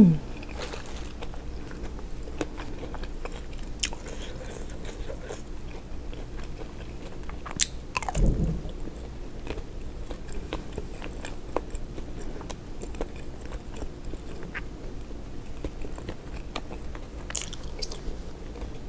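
Close-miked eating of boiled seafood: biting and chewing with crunches and many small clicks, and one louder sound about eight seconds in that slides down in pitch.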